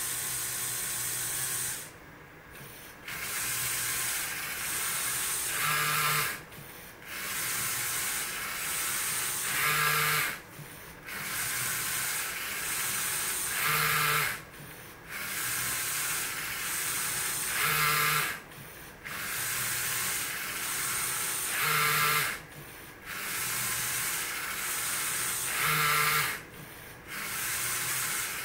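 LEGO SPIKE Prime motors and Technic gearing running in a repeating cycle about every four seconds as the machine draws strokes with a brush pen. Each cycle is a steady whir that gets louder, with a hum, near its end, then stops briefly before the next stroke.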